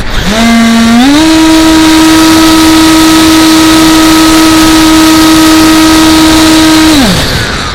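Electric motor and propeller of an AXN Floater remote-control plane throttling up, holding a steady high whine for several seconds, then throttling back down near the end. Wind rushes on the microphone throughout.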